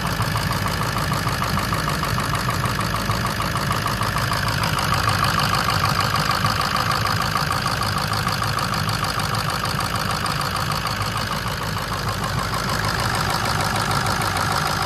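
Ford F-250's 6.0-litre Power Stroke turbo diesel V8 idling steadily, heard close up in the open engine bay, with a rapid, even diesel clatter.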